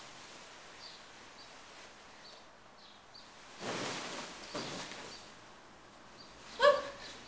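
Satin wedding-dress fabric rustling in a swell about halfway through as the wearer goes over in a cartwheel, with a smaller rustle just after. Near the end comes a brief, high-pitched vocal cry. Faint high chirps repeat in the background.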